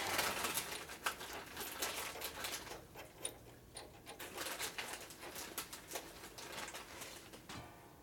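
Irregular small clicks, taps and rustles of hands working metal parts into place on a motorcycle.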